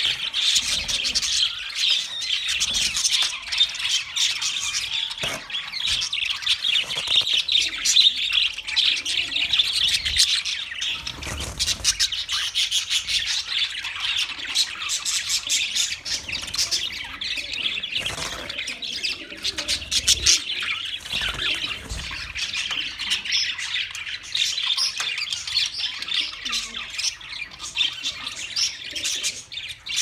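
A flock of budgerigars chirping and chattering all together without a break, a dense high twittering.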